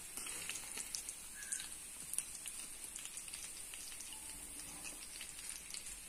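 Hot cooking oil sizzling steadily in a pan of deep-frying chicken cutlets, with many small sharp crackles and pops.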